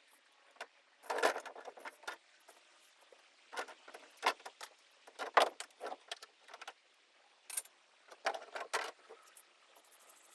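Irregular bursts of scraping, crackling and knocking as foam and rotted stringer wood are torn out of a fibreglass boat hull, with the louder bursts about a second in, around four to five and a half seconds in, and around eight to nine seconds in.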